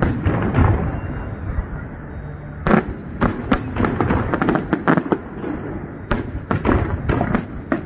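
Aerial fireworks display: shells bursting overhead in a series of sharp bangs and crackling reports, sparse at first, then a dense, rapid run from about three seconds in.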